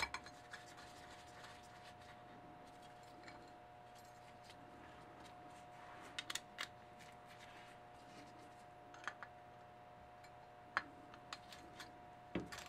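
Small metal parts of a moped wheel hub and sprocket being handled and fitted by hand: sparse light clicks and taps of bolts, nuts and a wrench, a few in quick succession about six seconds in and more near the end, over a faint steady hum.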